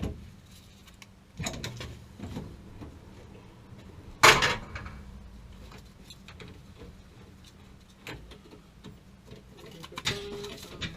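A few scattered knocks and clatters, the loudest about four seconds in, over a low steady hum.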